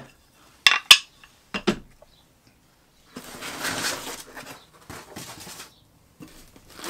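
Two sharp knocks of hard parts set down on a wooden workbench, with a third, softer knock about a second later. Then a burst of rustling as a foam packing sheet is pulled out of a cardboard box, with smaller rustles after.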